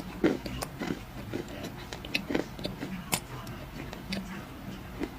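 Black clay crunching as it is bitten and chewed: a run of sharp, irregular crunches and snaps.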